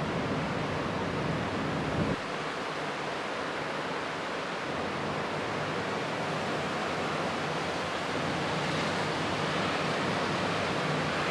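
Steady rushing noise of typhoon wind, with a low rumble that drops away about two seconds in.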